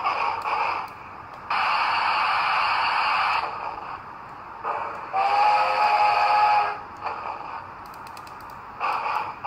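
Steam sounds from the DCC sound decoder of an HO scale Union Pacific Challenger model, played through its small speaker: long bursts of steam hiss, with one whistle blast of about a second and a half around the middle.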